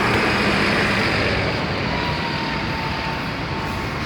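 Steady road traffic noise from engines of stopped and slowly moving vehicles, including buses, with a faint thin high tone running through it.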